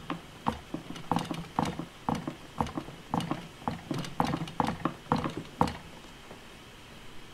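Fingers handling a plastic toy ice cream cone and Play-Doh pieces: a run of light, irregular taps and clicks, about three or four a second, stopping near six seconds in.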